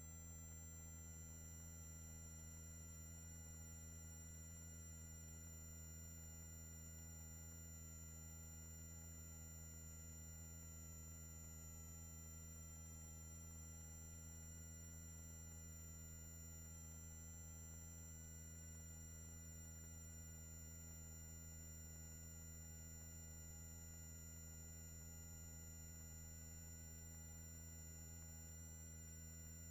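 Near silence: a steady low electrical hum with a faint, thin high whine on a helicopter intercom audio feed, with no rotor noise audible.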